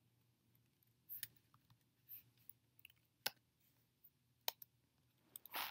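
Near silence broken by a handful of isolated sharp clicks, about a second apart, from a computer keyboard and mouse being worked.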